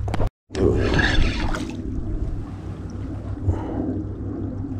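Wind rumbling on the microphone and water lapping around a small fishing boat. The sound cuts out briefly just after the start, and a louder rush of noise follows for about a second.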